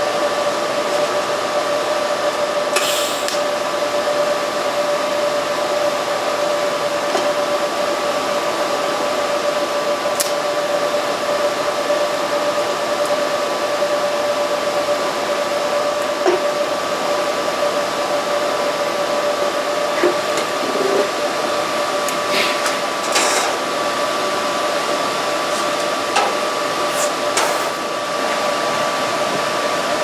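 Steady hiss and hum of TIG welding equipment running while stainless steel spoons are tack-welded, with a few light metallic clicks and taps, several of them close together near the end.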